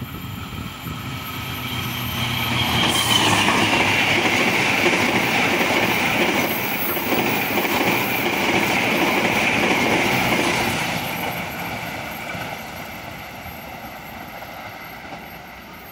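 Argo Wilis passenger train hauled by a diesel locomotive passing at speed: the rumble and wheel-on-rail noise swell as the locomotive and coaches go by, stay loud for several seconds, then fade as the train moves away.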